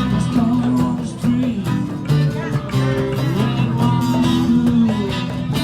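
Acoustic guitars strumming in a live band, playing an instrumental passage with no vocals.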